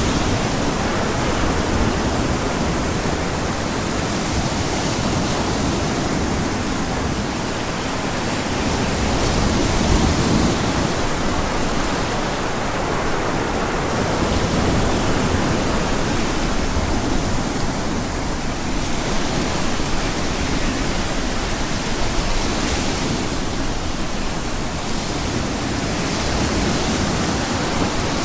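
Ocean surf mixed with wind: a continuous wash of noise that slowly swells and eases every several seconds.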